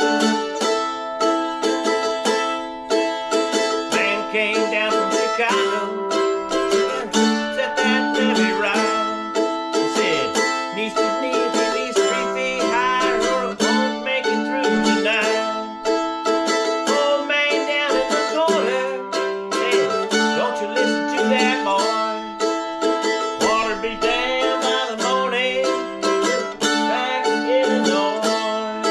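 Mandolin played with a pick: an instrumental passage of quick melodic runs over ringing chords.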